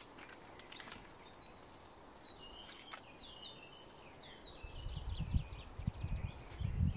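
A small bird singing short twittering phrases in the background, with low thumps and rumbling in the second half.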